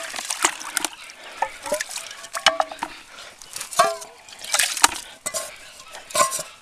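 Ducks and ducklings feeding at their water and food: quick pecking and dabbling clicks with water sloshing, and a few short calls.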